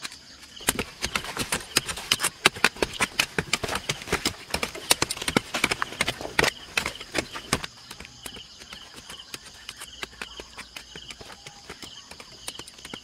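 Two short-handled hoes chopping into dry, stony soil: quick, overlapping strikes for about seven seconds, then only a few scattered ones. Insects trill steadily in the background.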